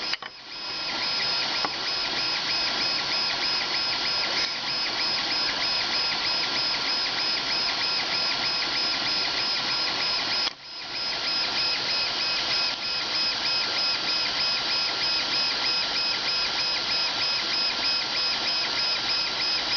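Creality Ender 3 3D printer running mid-print: a steady mechanical whir with a constant high whine and a rapidly warbling tone beneath it. It drops out for a moment about ten and a half seconds in, then resumes.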